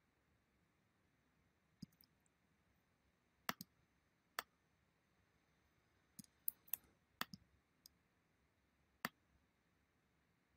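Scattered sharp clicks of a computer mouse and keyboard, about a dozen, some in quick pairs, as text is selected, copied and pasted between two windows.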